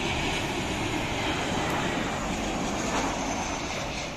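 Jet engines of a Boeing 737 airliner passing close by on its landing approach: a loud, steady rush of jet noise that begins to fade right at the end.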